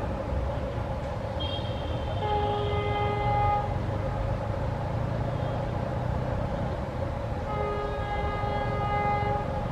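Indian Railways train air horn sounded in two long blasts, each about two seconds long and a steady multi-note chord, over the continuous rumble of the train running.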